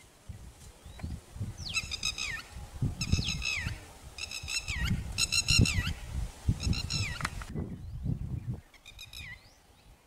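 Red-wattled lapwing calling: about six shrill bursts, each a quick run of sharp notes ending in a falling slur, spaced roughly a second apart and stopping about a second before the end. A low rumble runs underneath.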